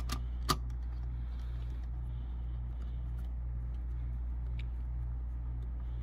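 T30 Torx screwdriver tightening a CPU heatsink screw: two sharp metallic clicks in the first half-second, then a few faint ticks, over a steady low hum.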